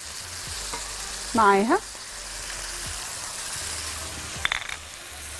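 Cubed beef searing in a hot pan with a steady sizzle, left unstirred while garlic cloves and herbs go in. A few light clicks come near the end.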